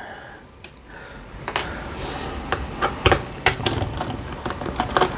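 Irregular light clicks and taps of small parts and tools being handled while an RC car's steering assembly is taken apart. The clicks are sparse at first and come more often from about a second and a half in.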